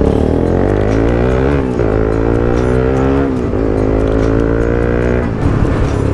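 Bajaj Pulsar NS 200's single-cylinder engine, with the dB killer removed from the exhaust, revving up three times in succession as the rider shifts up through the gears. It settles to a lower, steadier pitch near the end.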